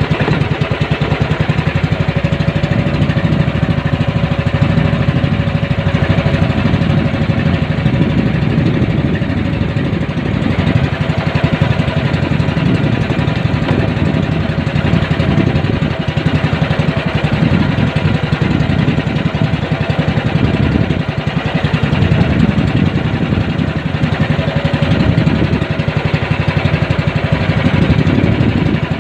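Small engine of a motorized outrigger fishing boat (bangka) running steadily while the boat is under way, with a fast, even beat.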